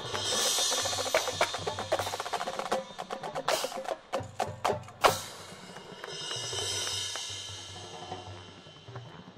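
Background music driven by percussion: quick, dense drum hits through the first half, a sharp loud hit about five seconds in, then a smoother held passage.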